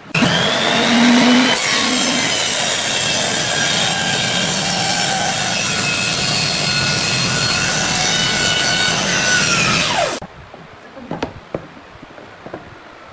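Table saw starting up with a rising whine and cutting through wood for about ten seconds, then shutting off with its pitch dropping as the blade stops. A few light knocks of wooden pieces being handled follow.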